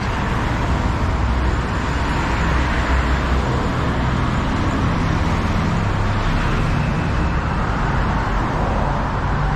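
Steady noise of busy road traffic, cars and motorbikes passing, with a low engine hum stronger through the middle.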